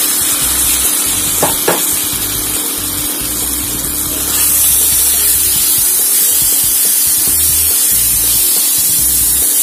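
Cooked moong dal and sautéed onions sizzling in hot oil in a non-stick kadai as they are stirred together with a spatula, with two light knocks of the spatula about a second and a half in. The sizzle grows louder about halfway through.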